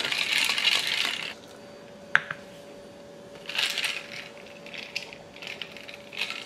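Ice cubes clinking in a tumbler and a plastic container being handled on a countertop. There is a rattle at the start, a sharp click about two seconds in, and a few short clatters after that.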